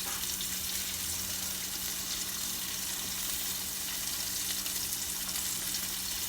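Onions sautéing in avocado oil in a pan, giving a steady, even sizzle, with a low steady hum underneath.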